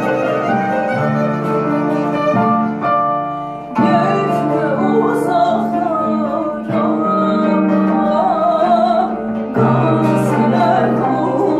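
Slow folk song played on digital piano, kabak kemane and bağlama, with a woman singing an ornamented melody. Piano chords lead at first; the fuller ensemble and wavering melody come in about four seconds in.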